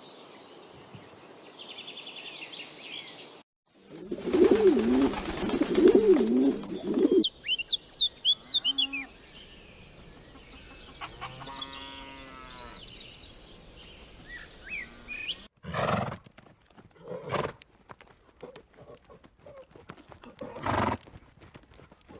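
A string of different animal calls cut one after another: bird chirps, then a loud wavering call about four seconds in, quick bird chirps, a pulsing call around the middle, and several short loud bursts near the end.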